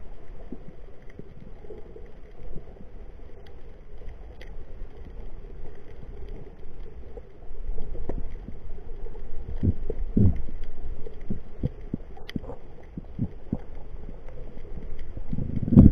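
Muffled underwater ambience picked up by a submerged camera: a low rumble of moving water with irregular dull thumps, heavier from about halfway through, and a few faint clicks.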